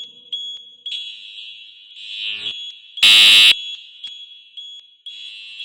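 Building fire alarm sounding between voice evacuation messages: a shrill high-pitched alarm tone that pulses on and off. About three seconds in there is a much louder, distorted half-second burst.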